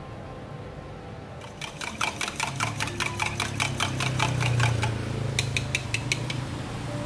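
Fork beating eggs in a stainless steel cup: rapid metal clinking at about five strokes a second, a short pause, then a second, shorter run. A low hum sounds underneath.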